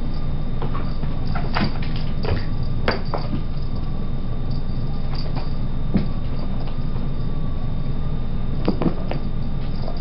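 A cat's paws and claws tapping and skittering on a hardwood floor as it spins after a laser dot: scattered sharp taps, a quick run of them about two to three seconds in and a couple near the end, over a steady low hum.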